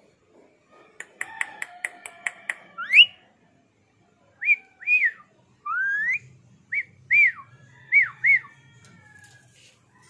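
Ring-necked parakeet whistling: a quick run of about seven clicks, then a rising whistle and a string of short, arching whistle notes.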